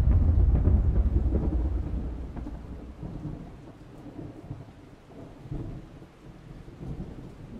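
A roll of thunder, loud and deep at first, fading away over about three seconds. Rain keeps falling afterwards as a quieter steady hiss.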